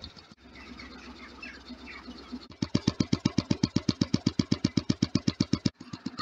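Homemade diaphragm Stirling engine running under dynamometer load, a fast even rhythmic knocking of about eleven beats a second. It is faint at first and becomes much louder about two and a half seconds in.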